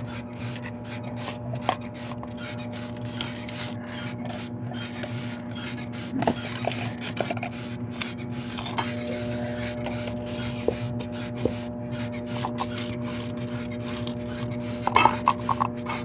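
Plastic cups and tubs being shifted by hand and rubbed against each other and the tile floor, with a few light knocks, over a steady hum with a constant pitch.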